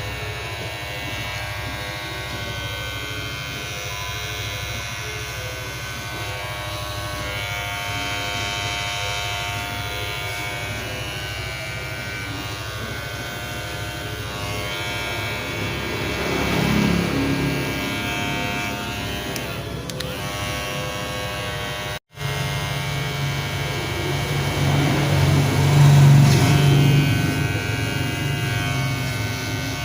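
Magic Clip electric hair clipper running with a steady buzz. It swells louder about sixteen seconds in and again near the end, and cuts out for an instant a little past the middle before carrying on.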